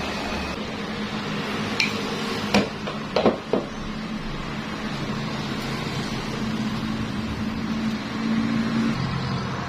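MIG welding machine running with a steady hum and fan noise, with a few sharp clicks about two to three and a half seconds in.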